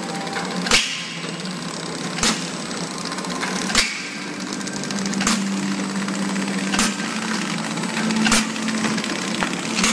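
Pillow packing machine (horizontal flow wrapper) running: a steady mechanical hum with a sharp clack about every one and a half seconds.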